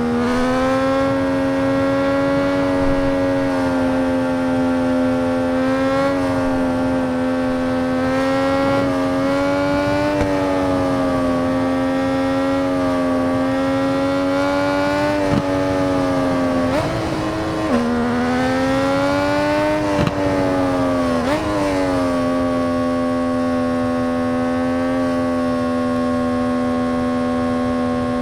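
MV Agusta 800 RR motorcycle's three-cylinder engine running at a high, nearly steady pitch, with two brief dips in pitch and a couple of sharp clicks a little past the middle.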